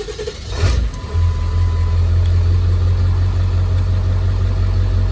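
Ford 7.3 L Power Stroke V8 turbo-diesel starting, then idling steadily from about a second in.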